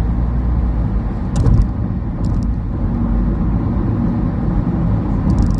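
Steady low road and tyre rumble inside a car cruising at expressway speed, with a brief louder bump about a second and a half in and a few short clicks.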